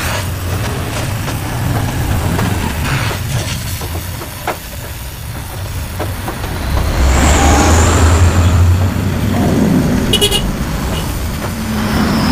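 Motor vehicle engine running with a steady low rumble that swells louder about seven seconds in.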